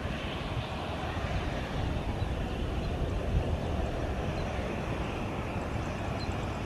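Boeing 737 airliner's CFM56 jet engines running steadily as the aircraft rolls along the runway: an even rumble with a hiss above it.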